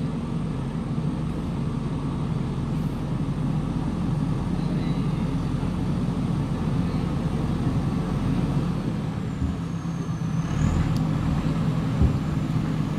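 JCB 3DX backhoe loader's diesel engine running steadily as the machine drives slowly forward, with a few short knocks near the end.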